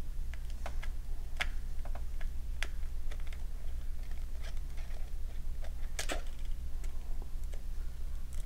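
Small irregular clicks and ticks of a precision screwdriver turning a tiny screw in the plastic battery cover of a toy RC car's remote, with the plastic case tapping as it is handled; one louder clack about six seconds in. A steady low hum lies underneath.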